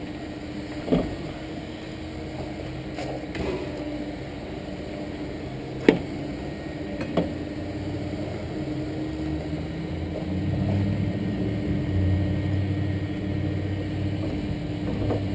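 A crowbar prying and twisting at a gas water heater's control box, giving a few sharp metal knocks, the loudest about six seconds in. Under it runs a steady hum, and a low rumble swells up near the end.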